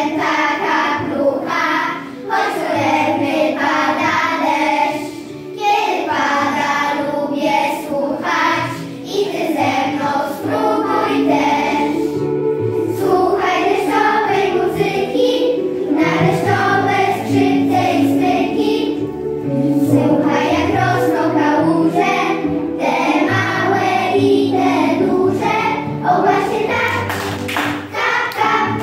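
A group of young children singing a song together in unison over instrumental backing music.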